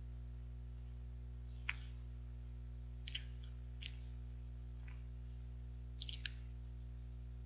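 A few short, wet mouth sounds as a person sips from a mug, about five of them spread out, over a steady low electrical hum.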